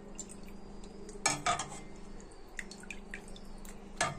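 A small metal idol knocking against a metal pot as it is dipped in milk: a few sharp metallic clinks about a second in and again near the end, with small liquid drips and splashes between them.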